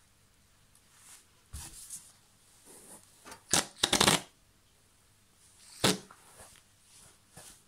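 Short, dry scuffing and rustling bursts from a pink rubber whoopee cushion being squashed and shifted under a seated person. There is no pitched fart tone. The loudest cluster comes about three and a half to four seconds in.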